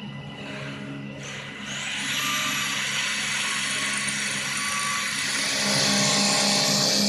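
CNC wood lathe running with a steady motor hum. About two seconds in, a high whine rises and holds while a hiss comes in, and the machine gets louder. The low hum swells again near the end.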